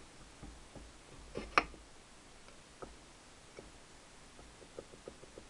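Small metallic clinks and ticks of a Triumph gearbox cam plate being fitted into the gearbox housing. One sharper clink comes about one and a half seconds in, followed by a few faint ticks.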